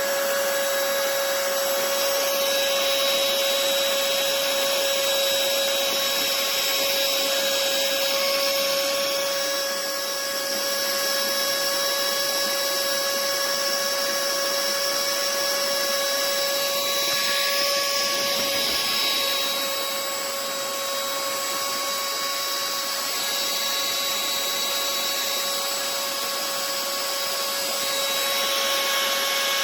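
Small battery-powered electric air pump running steadily with a high whine over rushing air, emptying the inflatable camping mat. It starts abruptly and dips slightly in level a couple of times.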